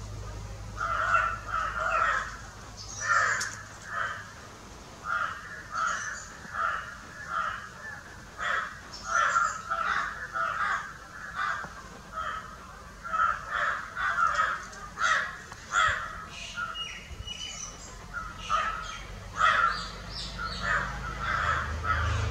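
Crows cawing over and over, short harsh calls coming one or two a second without a break.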